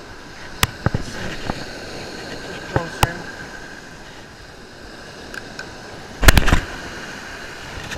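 Steady wind and surf noise at the water's edge, with a few sharp clicks and knocks from handling a fishing rod and conventional reel in the first three seconds. About six seconds in comes the loudest sound, a short burst of heavy knocks and rubbing as a hand touches the camera.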